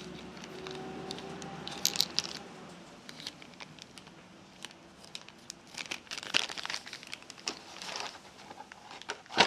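Packaging crinkling and rustling as it is handled and opened, with scattered small clicks and one sharper knock near the end.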